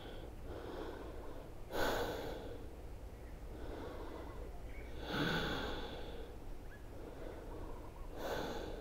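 A person breathing audibly through the nose while holding a yoga stretch: three slow breaths, about three seconds apart, over a faint steady low rumble.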